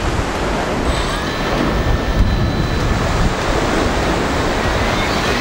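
Surf washing onto the beach with wind on the microphone, a steady noise. From about a second in, a faint high steady whine of the fishing drone's motors turning at idle.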